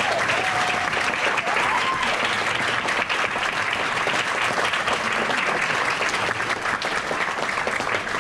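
An audience applauding, a dense clatter of many hands clapping, with a few voices over it in the first couple of seconds.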